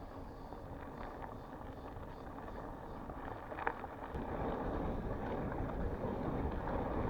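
Mountain bike rolling over a dirt trail: a steady rumble of tyres and wind on the microphone, slowly growing louder, with a few faint rattling clicks.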